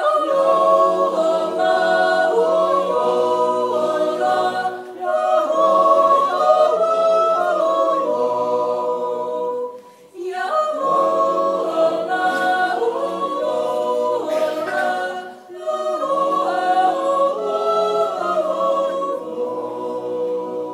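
Swiss yodel club of men's and women's voices singing a cappella in harmony: sustained chords sung in several phrases, with short breaks between them.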